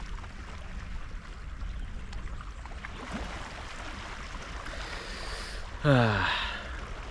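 Steady low rumble and hiss of open-air background. About six seconds in, a man breathes in and lets out a short sigh that falls in pitch.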